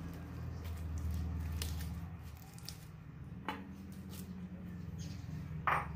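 Orange slime with water beads mixed in, squeezed and kneaded by hand, giving wet squishing with small sticky clicks and crackles. A louder short pop comes near the end as the slime is pressed flat on the table.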